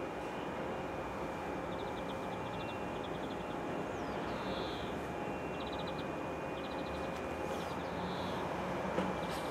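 Standing DB Class 425 electric multiple unit humming steadily, with a high steady whine from its converters and ventilation while at rest. Birds chirp and give rapid trills several times over it, and there is a short click near the end.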